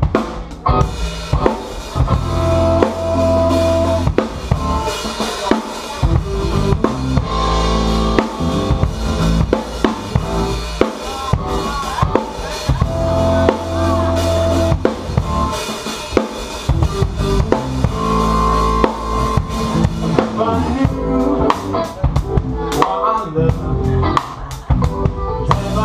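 A live band playing, led by a drum kit struck with sticks: kick drum, snare and cymbals keep a steady beat. Electric bass and other instruments play underneath.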